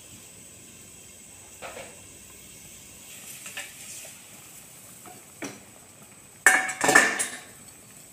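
Stainless steel pot lid being handled and lifted off a wok: a few light metallic knocks, then a loud clanking clatter of the lid near the end.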